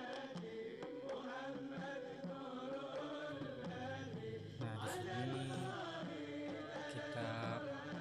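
Background music: a chanted vocal melody, with a low bass line coming in about three seconds in.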